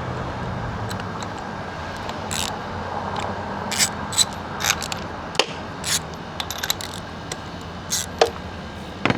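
Spark plug ratchet clicking and metal tools clinking in short, irregular bursts as the spark plugs are loosened on a 1999 Johnson 70 hp two-stroke outboard.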